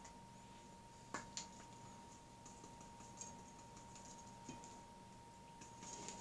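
Near silence: a few faint clicks and light taps from a seasoning shaker being opened and shaken over raw game hens, with a faint steady tone underneath.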